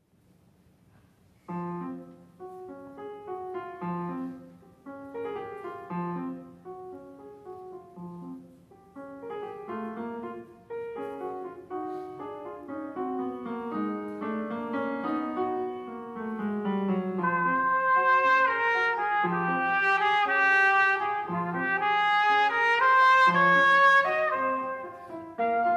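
Trumpet and piano playing classical chamber music. It starts about a second and a half in with short phrases over low piano notes, then grows louder and fuller from about two-thirds of the way through.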